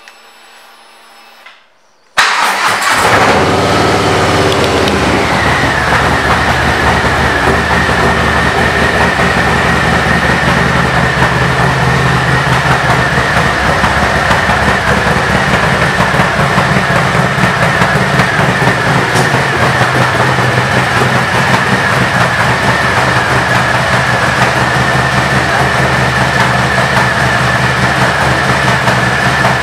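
2019 Harley-Davidson Street Bob's Milwaukee-Eight 107 V-twin with Vance & Hines pipes starting about two seconds in, its pitch briefly swinging before it settles into a steady idle.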